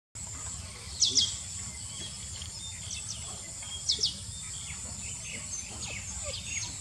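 Insects buzzing steadily, a high continuous drone, with birds chirping over it. Short falling chirps come in pairs about a second in and again about four seconds in.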